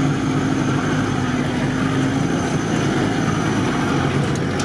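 Off-road 4x4's engine running steadily as it drives slowly along a rutted dirt track, with a faint steady whine that fades out about two seconds in.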